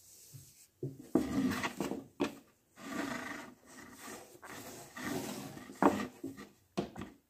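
Braided rope rubbing and sliding through hands and over a wooden board as a knot is tied and drawn tight, in a string of short bursts.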